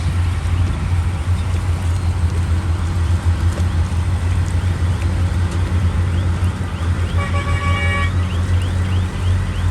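Heavy diesel earthmoving machinery running steadily under load, with a rhythmic high squeaking above the engine. About seven seconds in, a vehicle horn sounds once for about a second.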